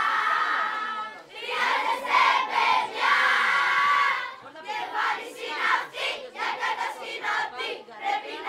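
A crowd of children shouting together in loud, drawn-out yells. The longest and loudest stretch runs from about a second and a half in to about four seconds, followed by shorter shouts.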